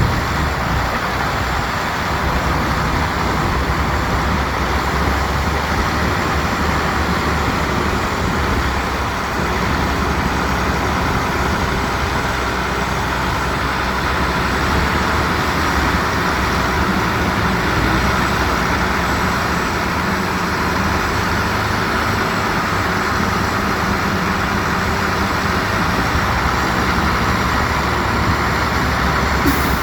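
Heavy diesel construction machinery running steadily at work, with an even engine drone and rumble throughout.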